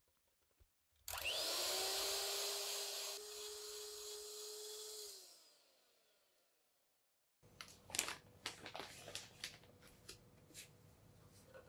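Electric hand mixer switched on, its motor whine rising in pitch and then running steadily as the beaters whip the batter in a glass bowl, dying away after about four seconds. After a short silence, plastic bag rustling and light clicks as a metal cup scoops cake flour.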